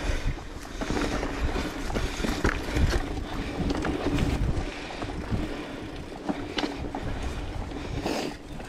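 Mountain bike riding along a dirt singletrack: tyres rolling and crunching on the dirt, the bike rattling and knocking over bumps, with wind on the microphone.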